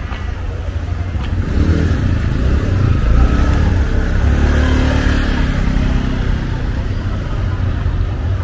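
City street traffic, with a motor vehicle's engine passing close: its low rumble swells through the middle and then eases off.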